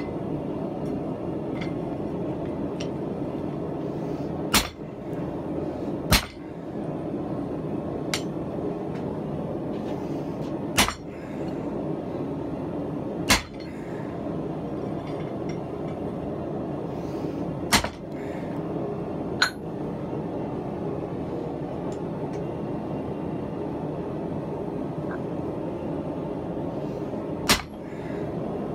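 Seven sharp metallic clanks of steel striking the anvil, spaced irregularly a few seconds apart, over a steady rushing noise from the running forge.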